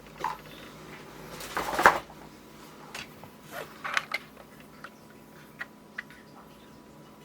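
Objects being handled: a short rustle about two seconds in, then a few light clicks and knocks, fading to scattered faint ticks.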